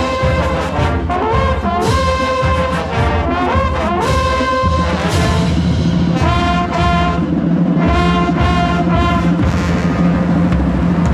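Brass-led music, with held notes changing every second or so over a steady low bass.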